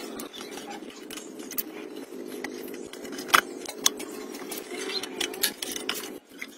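Sharp clicks and light rattling of old tractor wiring and plastic connectors being handled, two louder clicks a few seconds in, over a steady low hum.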